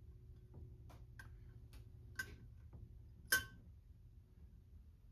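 Small metal carburetor parts clicking and tapping as they are handled and fitted together: a scatter of light clicks, with a sharper click a little over three seconds in.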